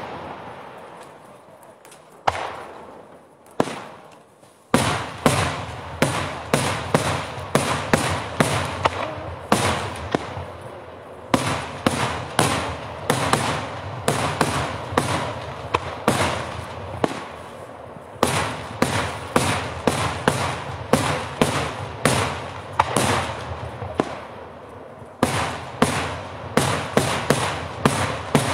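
Daytime aerial firework shells bursting with sharp bangs: a few spaced apart at first, then from about five seconds in a rapid, unbroken barrage of two or three bangs a second.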